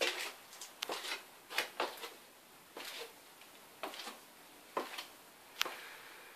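Footsteps and shuffling on a debris-littered wooden floor: irregular sharp clicks, knocks and scrapes, about one or two a second.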